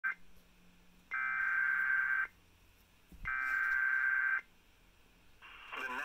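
Emergency Alert System SAME header data bursts, the digital tones that open a severe thunderstorm warning. The end of one burst comes at the very start, then two full bursts of about a second each with a pause of about a second between them.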